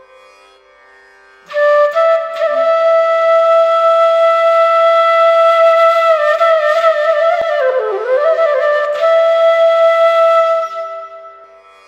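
Bansuri (bamboo flute) playing a slow melody over a faint steady drone: it comes in about a second and a half in, holds long notes, bends and slides through a phrase in the middle, then holds another long note that fades out near the end.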